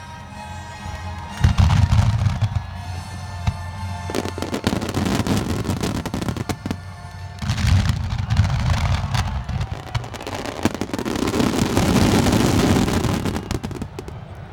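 Fireworks barrage: aerial shells booming and crackling densely, in surges a few seconds apart, over music from loudspeakers.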